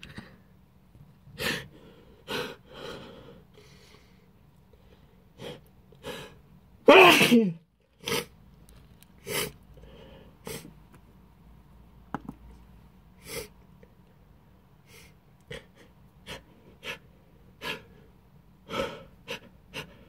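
A person sneezes loudly once about seven seconds in, brought on by ground black pepper dust in the air. Short sharp sniffs and breaths come every second or two around the sneeze.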